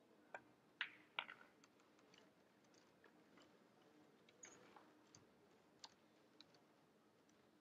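Pool shot: sharp clicks of the cue tip striking the cue ball and the cue ball knocking the 7-ball, which is potted in the corner pocket, all within the first second and a half. A few fainter clicks follow later.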